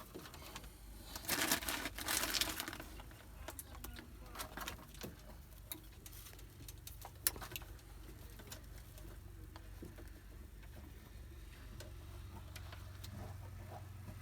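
Truck wiring being bundled and plastic cable ties pulled tight: a burst of rustling about a second in, then scattered small clicks and one sharp click near the middle.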